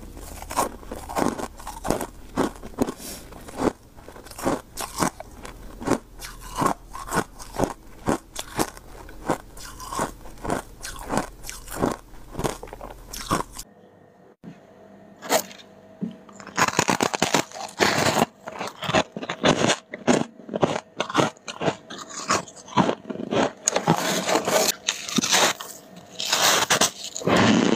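Close-miked crunching of freezer frost being bitten and chewed, a crisp crunch roughly every half second. A little past halfway the sound changes, with a short quieter stretch before the crunching starts again.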